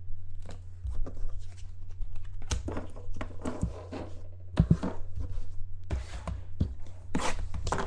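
Trading cards and their packaging being handled: irregular light clicks, taps and rustles of cards and wrappers, over a steady low electrical hum.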